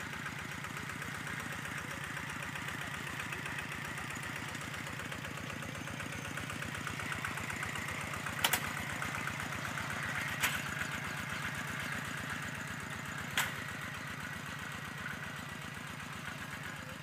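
Two-wheel walking tractor engine running steadily with an even beat as it works the field, growing louder around the middle as it passes close. Three sharp clicks come in the second half.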